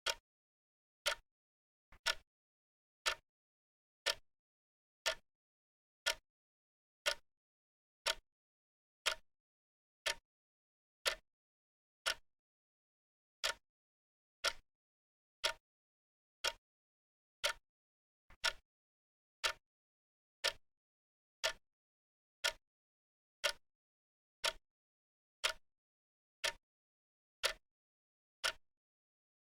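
Wristwatch ticking, one sharp tick about every second with silence between, now and then with a faint extra click just before a tick.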